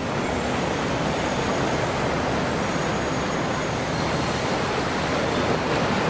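Steady wash of ocean surf breaking on the beach.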